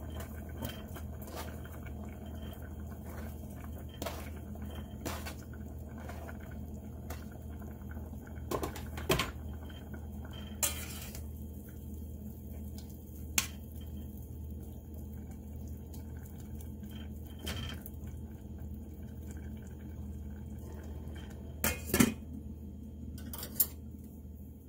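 A metal spoon clinking and scraping against a stainless-steel saucepan as rice and broccoli are stirred, with scattered sharp knocks over a steady low hum. A glass pot lid clanks onto the pan a couple of times near the end.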